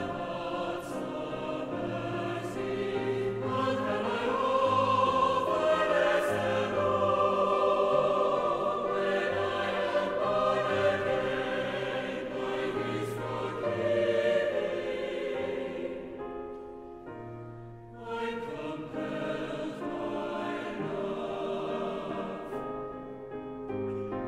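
Choir singing with instrumental accompaniment, dipping to a quieter, thinner passage about sixteen seconds in before carrying on.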